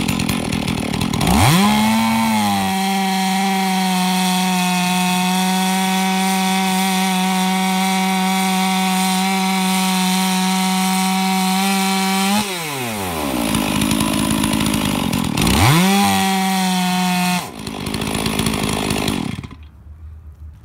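Rebuilt Stihl MS460 two-stroke chainsaw idling, then revving to full throttle about a second in and cutting through a log round at a steady high pitch for about eleven seconds. It drops back to idle, revs up again for about two seconds, falls to idle and is shut off near the end.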